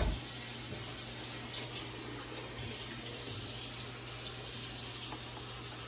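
Pan of thick red chili sauce simmering and being stirred with a spoon: a steady, soft bubbling hiss with a few faint scrapes, over a steady low hum.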